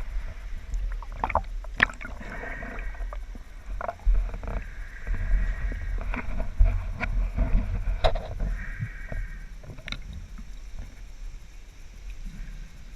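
Muffled water movement with a low rumble, broken by scattered sharp clicks and knocks.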